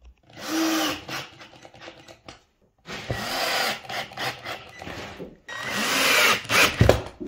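Cordless drill-driver driving 20 mm screws through a steel ball-bearing drawer runner into a birch plywood drawer cheek. The motor runs in three spells with short pauses between.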